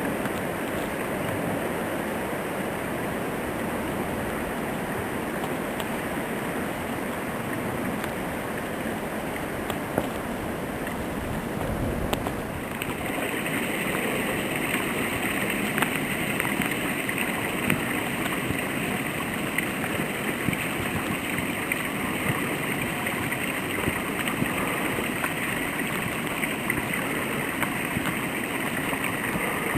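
Steady rushing of storm wind during heavy snowfall. About 12 seconds in, the sound shifts and a higher hiss joins it.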